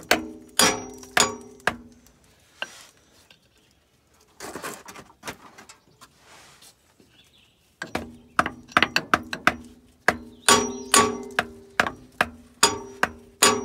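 Hammer driving a screwdriver through the steel canister of a spin-on oil filter to punch a drain hole: sharp metallic blows that ring after each strike, about two a second. They stop for several seconds in the middle and then resume.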